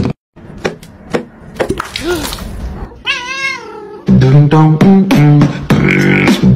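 A cat gives one short meow, rising and then falling in pitch, about three seconds in. From about a second later, loud background music with stepped, repeating notes takes over.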